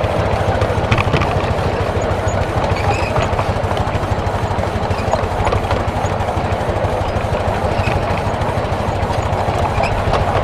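7¼-inch gauge miniature steam locomotive running steadily along the track, heard from the cab: a continuous, fast, even running noise with scattered light clicks of the wheels on the rails.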